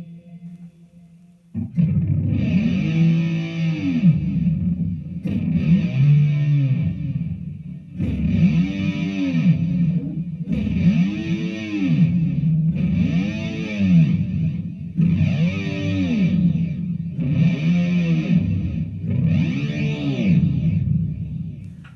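Distorted electric guitar played through a Digitech GNX3 multi-effects processor, chords struck about every two and a half seconds, with a pitch effect bending the notes up and down in repeating arcs. It starts after a short quiet moment.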